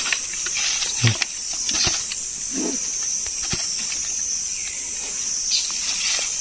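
Steady high-pitched chirring of crickets or other insects, with a few brief taps and rustles as small fish are shaken from a mesh net trap into a plastic bucket.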